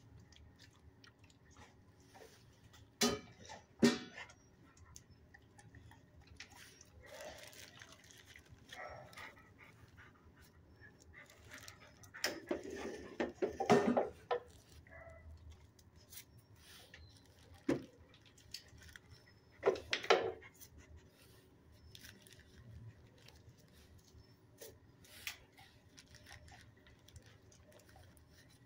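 Scattered clicks and knocks from a dog moving about a kennel and nosing the floor for a treat. A few louder knocks come about three and four seconds in, a cluster around twelve to fourteen seconds, and another pair near twenty seconds, over a quiet background.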